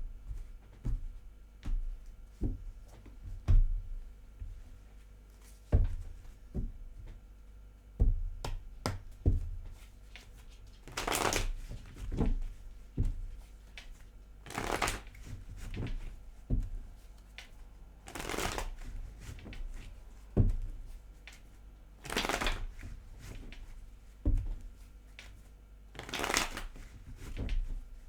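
A deck of tarot cards being shuffled by hand: scattered soft knocks of the cards against a surface, then five longer rustling shuffles, about one every four seconds.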